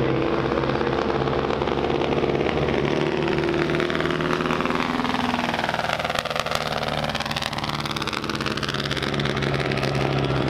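Vintage open-wheel race car (yellow No. 32 Riley Special) with its engine running, passing close by about six seconds in; the note sweeps as it goes by.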